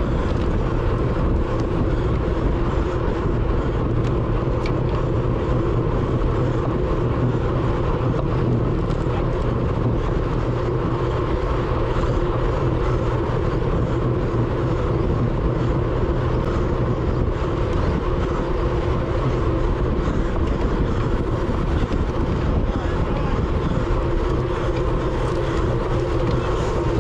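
Steady rush of wind and tyre noise on an onboard action camera on a road bike at racing speed.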